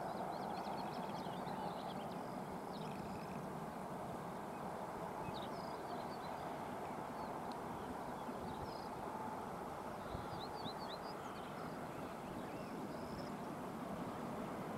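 A TE33AC diesel locomotive's 12-cylinder GEVO engine drones low and steady as the freight train approaches, with birds chirping now and then over it.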